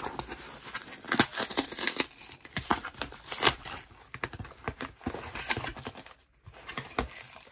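Brown packing tape being ripped off a cardboard shipping box, tearing away the box's outer paper layer with it, in a series of irregular rips and crackles. The box is heavily taped shut.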